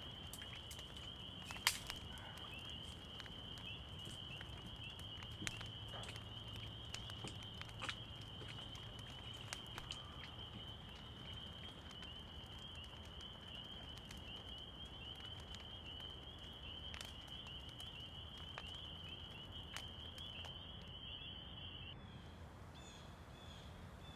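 Faint night insects trilling steadily at one high pitch, cutting off suddenly near the end, with sparse small crackles from a freshly lit wood fire.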